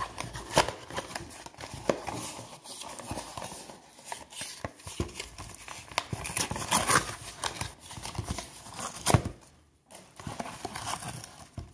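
Heritage baseball card box and foil packs being opened by hand: paper tearing and wrappers crinkling, with scattered sharp clicks and rustles and a short pause near the end.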